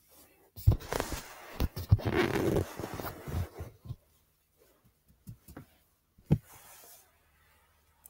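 Handling noise from hands moving plush toys and the recording device about on carpet: about three seconds of rustling with several knocks, then one sharp knock a little after six seconds in.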